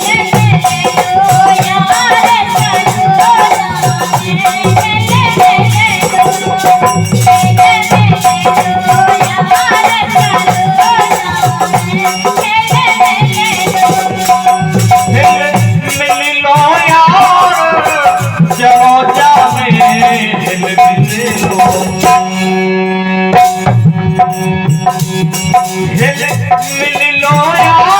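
Instrumental interlude of an Indian folk song: drums and a steady shaker rattle keep the rhythm under a wavering lead melody.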